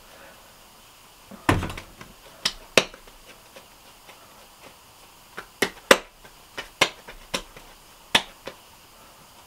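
Sharp, uneven slaps of a ball of dough being patted and shaped between the hands, about ten in all, with a heavier thump about one and a half seconds in.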